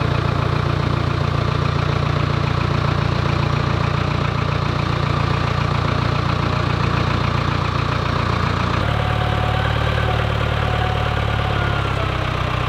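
Case 580E backhoe's engine running steadily as the bucket hoists a rope. The low hum shifts abruptly about nine seconds in.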